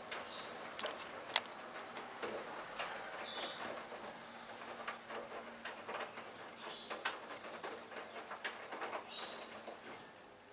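Hoover washing machine tumbling a wet load in its drum during the wash: pattering and sloshing with many small clicks, and a short high squeak about every three seconds.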